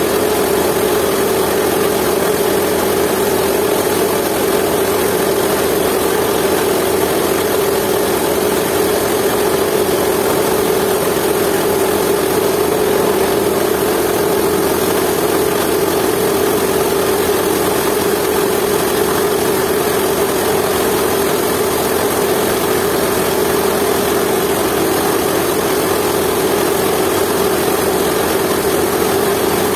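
Jiangdong 8 hp single-cylinder diesel engine running steadily, driving a coffee grinder through a flat belt.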